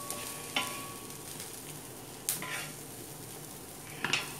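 A spoon stirring sautéed vegetables into beaten egg in a bowl: a soft, wet stirring hiss with three sharp clinks of the spoon against the bowl, about half a second in, a little after two seconds, and near the end.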